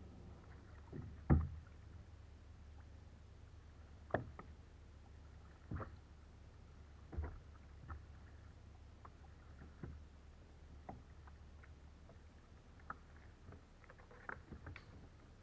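Kayak paddling on calm water: the paddle blades dip and splash every second or two, with a sharp knock now and then, the loudest about a second in, over a low steady rumble.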